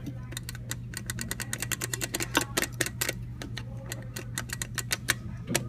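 Rapid, irregular clicking, about seven clicks a second, from a Dover elevator's lit down-arrow hall call button being pressed over and over, over a steady low hum.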